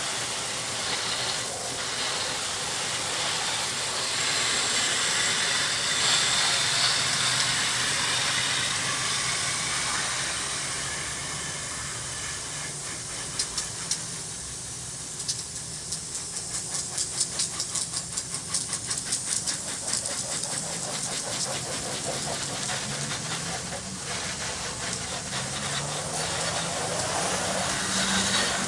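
Garden hose spray nozzle hissing as water is sprayed onto vinyl siding, rinsing off a bleach-and-soap house wash, with a stretch of rapid patter about halfway through.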